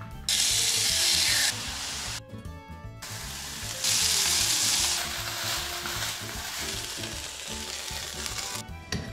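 Chicken pieces sizzling in a frying pan, in loud stretches that cut in and out with a short break near two seconds in; the sizzle softens over the second half and stops shortly before the end. Light instrumental music plays underneath.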